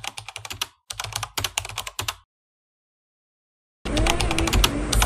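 A rapid series of light clicks for about two seconds, cutting off abruptly into dead silence. After more than a second of silence, background noise with further clicks comes in near the end.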